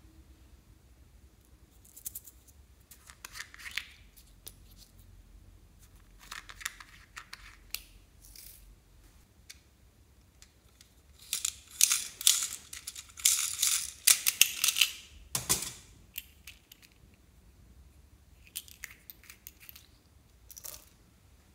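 Plastic toys and containers handled over a tray of slime: scattered light plastic clicks and rustles, then midway about four seconds of loud, dense rattling of plastic beads that ends in a knock. A few small clicks near the end.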